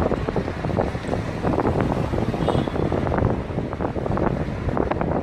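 Wind buffeting the microphone over the rumble of a moving vehicle on the road, with rapid irregular rattles and knocks throughout.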